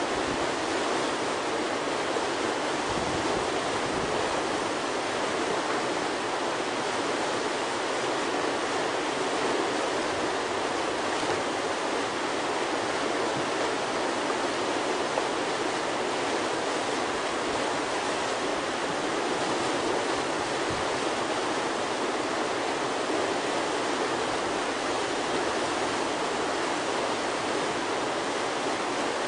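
Whitewater churning through a river's standing wave, a kayak play hole, making a steady, even rush of water.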